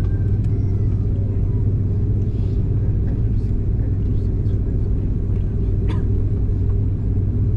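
Steady low rumble of an airliner cabin, the engine and airflow noise heard from a passenger seat, with a sharp click about six seconds in.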